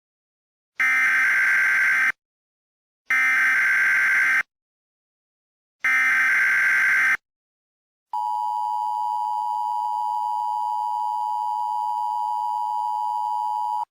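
Emergency Alert System header: three bursts of SAME digital data, each a bit over a second long, followed about 8 seconds in by the steady two-tone EAS attention signal (853 and 960 Hz).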